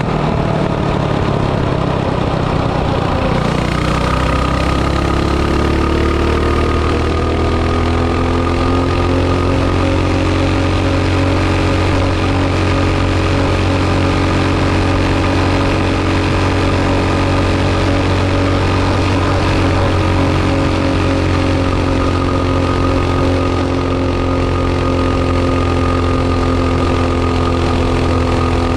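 Small single-cylinder engine of a hot-rodded mini bike with a 22 mm carburetor, running under load on a test pass. Its pitch dips briefly at first, climbs over the next few seconds, then holds steady at high revs.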